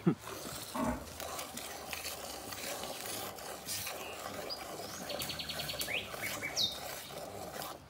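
A cow being hand-milked: repeated squirts of milk hissing into a metal pail that is already partly full of milk. Birds chirp and trill in the background, mostly in the second half.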